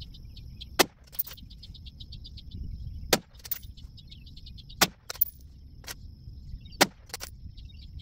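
Four unsuppressed rifle shots from a Ruger Mini-14 Ranch Rifle firing 5.56 M193 ball ammunition, spaced about two seconds apart, each followed by a fainter sharp snap. Insects chirp in quick bursts between the shots.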